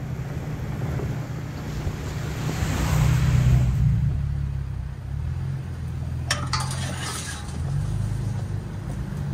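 Toyota Tacoma pickup driving a sandy dirt trail: a steady low engine drone with tyre noise, swelling about three seconds in. A short cluster of clicks and rattles comes about six to seven seconds in.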